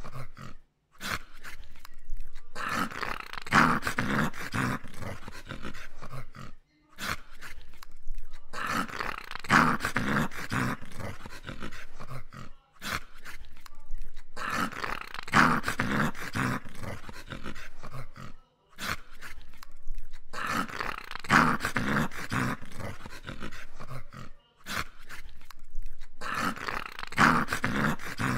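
A dog growling in long bouts, each about five seconds long, broken by short silent gaps at a very even rhythm of about one bout every six seconds.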